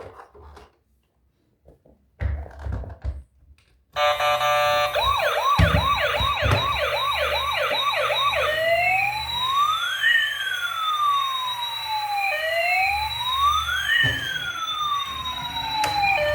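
A few clattering handling noises, then about four seconds in a toy vehicle's electronic siren switches on. It starts with a fast yelp of rapid repeated sweeps, then changes to slow wails rising and falling in pitch, each lasting a few seconds.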